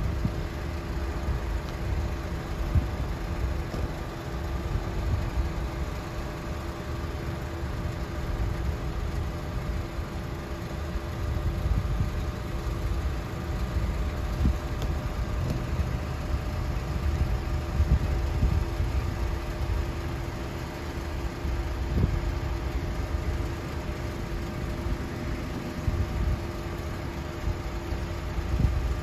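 Steady engine drone of a passing Great Lakes freighter, a constant hum over an uneven low rumble.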